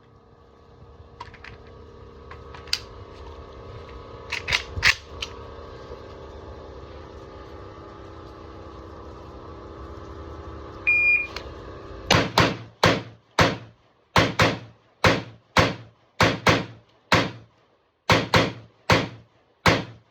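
A steady low hum with a few scattered clicks and knocks, then about fifteen shots from a Zastava AK rifle in 7.62x39mm, fired fast in three strings of four to seven, each report ringing off briefly.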